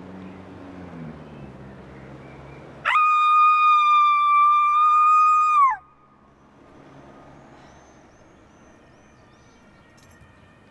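A single loud, high held note, about three seconds long, that slides down in pitch as it cuts off, over a quiet background.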